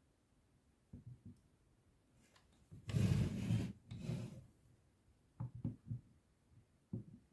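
A hand-tool scraping or rubbing noise in two strokes about three seconds in, the first the loudest, followed by a few short light knocks.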